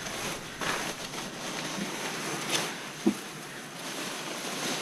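Thin plastic protective film being peeled off a flat-screen TV, a steady rustling and crinkling with a few small ticks.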